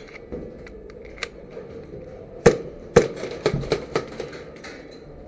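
Airsoft gunfire: two sharp cracks about half a second apart, followed by a quick run of lighter clicks and taps.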